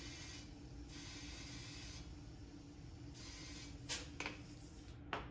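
Compressed air hissing into a low mower tire through an air chuck in three short bursts, followed by a few sharp clicks.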